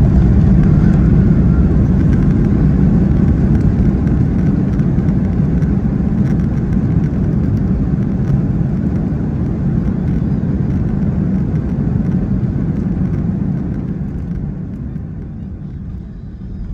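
Cabin noise of an Airbus A330-200 on its landing rollout with the ground spoilers raised: a loud, low rumble of the engines and the wheels on the runway, which fades over the last few seconds as the jet slows down.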